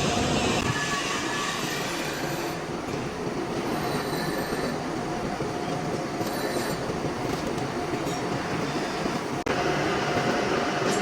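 Metal lathe running while turning a bronze bush: a steady, dense machining noise, broken by a sudden brief dip about nine and a half seconds in.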